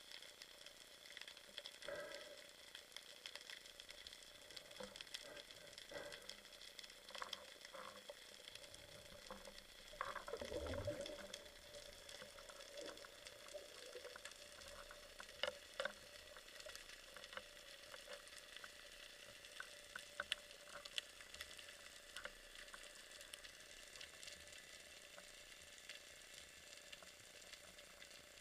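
Underwater ambience: a steady fine crackle with scattered sharp clicks, as heard by a submerged camera on the sea floor. About ten seconds in, a louder swooshing sound slides down in pitch.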